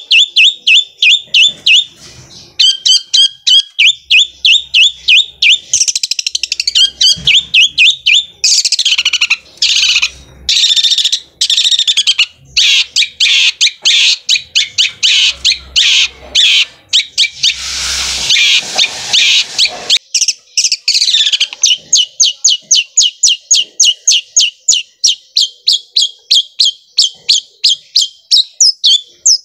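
Long-tailed shrike (cendet) singing loudly: runs of sharp, rapidly repeated notes likened to a sewing machine. Through the middle the notes close into a dense, fast rolling chatter, then return to an even, quick series.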